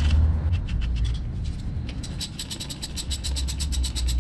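Socket ratchet clicking in a rapid, even run from about halfway through, as it tightens the oil strainer plug on a motorcycle engine during an oil change. Before that, a few light clicks and a low rumble of hands handling the plug.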